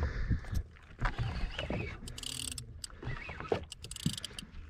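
Ambient noise aboard a small boat on open water, with scattered sharp clicks and knocks.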